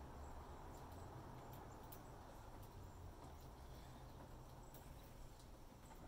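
Small flock of sparrows feeding on a wooden deck: faint, scattered light ticks of pecking and hopping on the boards over a low, steady background rumble.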